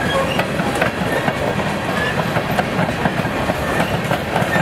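Empty coal hopper cars of a unit freight train rolling past: steady wheel-on-rail noise with irregular clicks and clacks from the wheels.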